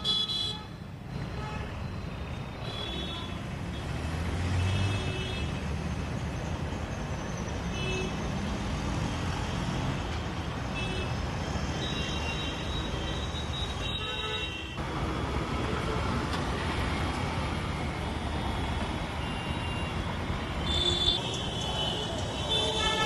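City street traffic: a steady hum of passing motorbikes, cars and auto-rickshaws, with short vehicle-horn beeps sounding several times.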